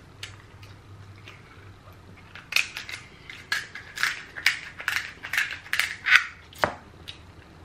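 Kitchen shears snipping through a cooked king crab leg's shell: a quick series of crunching cuts, about two or three a second, starting about two and a half seconds in.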